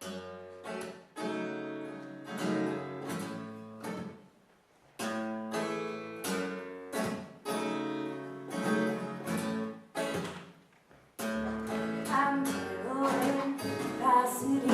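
Acoustic guitar strumming chords in a song's intro, in phrases with short pauses between them; a woman's singing voice comes in near the end.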